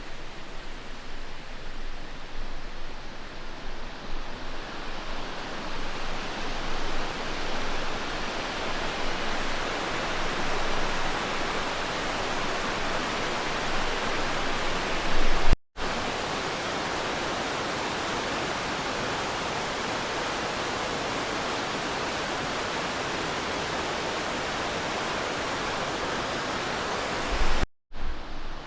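River water rushing over rocks: a steady, even roar of fast-flowing water. It breaks off abruptly twice, about sixteen and twenty-eight seconds in, each time just after a short, louder low thump.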